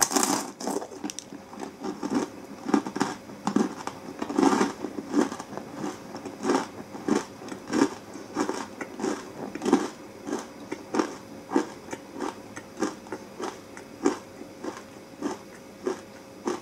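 A hard, crunchy space-food takoyaki ball bitten with one loud crunch, then chewed steadily at about three chews every two seconds. The crackle of the hard shell is strongest in the first few seconds and softens into plainer chewing.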